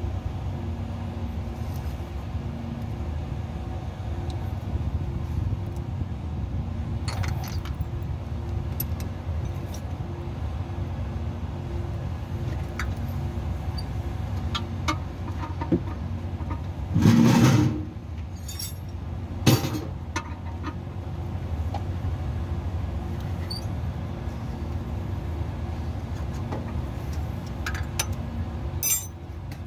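A steady low engine hum in the background, with scattered metallic clinks and knocks from tools and parts being handled in a forklift's engine bay. About seventeen seconds in there is a louder clatter lasting about a second.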